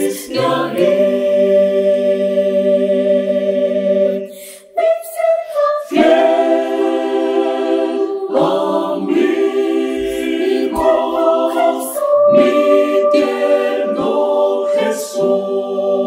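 Mixed choir of women's and men's voices singing a cappella in Spanish, in long held chords. The phrases are broken by short gaps, the longest just before the fifth second.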